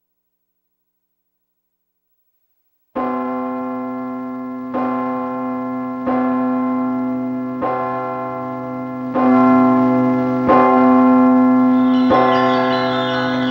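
A large swinging bell tolling. It starts about three seconds in and strikes seven times, roughly once every second and a half, each stroke ringing on into the next. Near the end, higher, quicker ringing notes join it.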